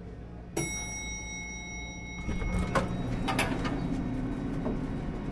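Elevator chime: a single ding about half a second in that rings for about a second and a half. Then the elevator doors slide open with a low rumbling hum and a few clicks.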